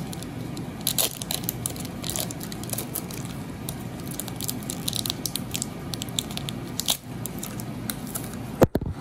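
Foil Pokémon booster pack wrapper crinkling and crackling as it is torn open and the cards are slid out of it. A single loud knock near the end.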